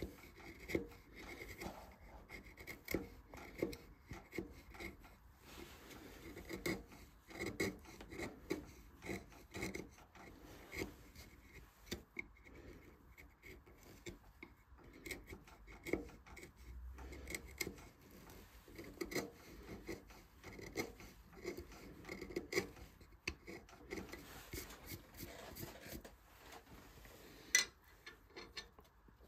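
Hand carving tools cutting and scraping wood in many short, irregular strokes as flowers are relief-carved into a turned wooden vase.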